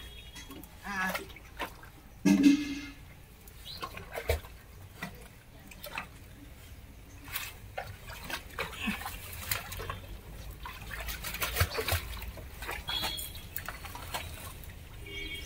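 Shallow muddy drain water trickling and splashing as a trapped dog moves in it, with scattered knocks and a short, loud cry about two seconds in.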